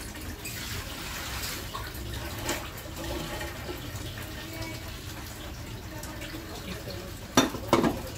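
Soft wet sloshing and dripping of beaten-egg batter as a battered fish fillet is lifted and drained over an enamel bowl, over a steady low hum. Two sharp knocks come near the end.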